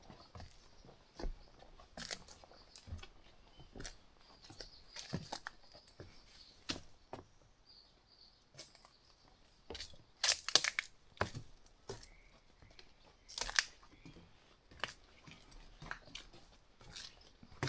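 Footsteps crunching on a hiking trail at an irregular walking pace, with a few louder crunches about ten and thirteen seconds in.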